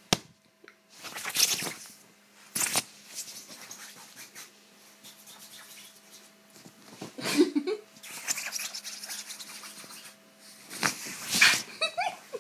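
Bedding rustling in loud swishes as a cat scrabbles and pounces on a duvet, after a sharp click at the start. A few short pitched sounds come in about seven seconds in and near the end.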